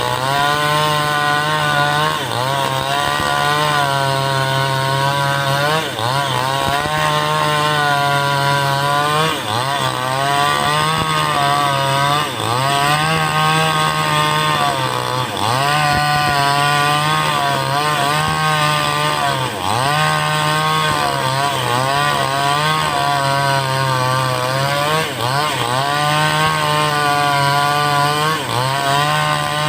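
5800-type two-stroke chainsaw with a 22-inch bar running near full throttle while ripping lengthwise through a teak log. Its engine pitch sags briefly every few seconds as the cut loads it, then picks up again.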